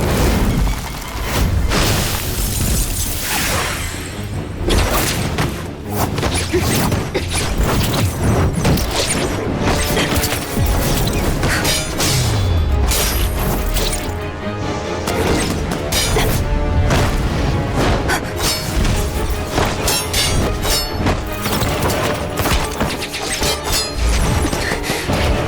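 Film score music with many heavy booms, crashes and shattering impact sound effects throughout, the soundtrack of an animated action sequence.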